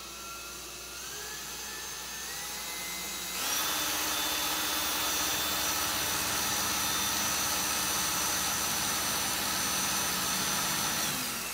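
Ryobi cordless drill running under its variable-speed trigger, pre-drilling pilot holes in pine. The whine climbs in pitch over the first few seconds, jumps to full speed, runs steadily for about eight seconds, then is released near the end.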